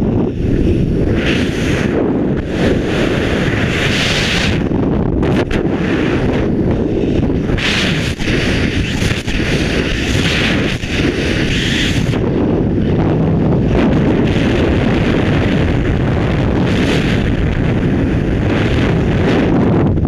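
Freefall wind rushing over a camera microphone during a skydive. It is a loud, unbroken low rush, with higher hissing that swells and fades in stretches.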